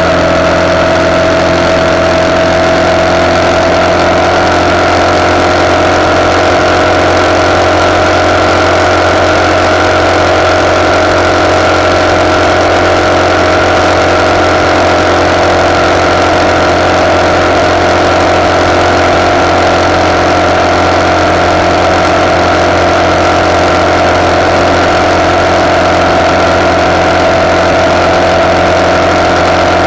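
RPS Hawk 250's single-cylinder four-stroke engine running through a de-catted Honda CRF230 exhaust as the motorcycle cruises at a steady road speed, heard close from the handlebars. Its pitch edges up slightly in the first few seconds and then holds steady.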